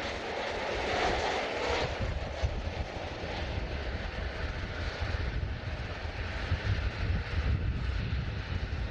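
Jet airliner engines rumbling steadily, with a stronger mid-range roar in the first two seconds.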